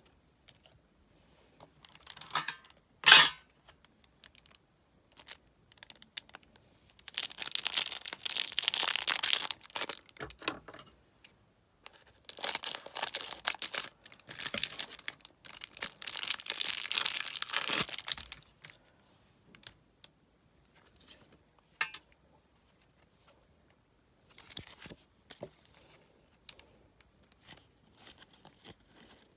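Match Attax trading-card packet wrappers being torn open and crinkled by hand: a sharp snap about three seconds in, then two long stretches of loud tearing and rustling wrapper, then lighter scattered rustles and clicks near the end.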